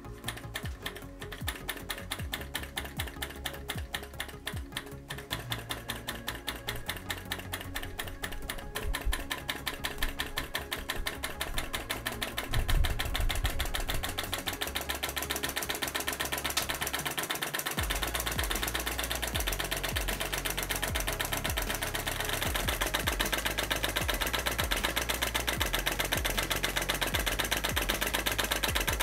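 Brass flame-licker (vacuum) engine model running, its valve and piston clicking in a fast, even rhythm that speeds up over the first dozen seconds as the engine gets going, then holds steady. Background music with a low bass runs underneath.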